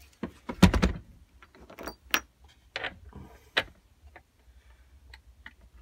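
Wooden mounting frame with metal brackets and bolts being handled on a workbench: a clatter and knock less than a second in, then scattered light metallic clicks and clinks.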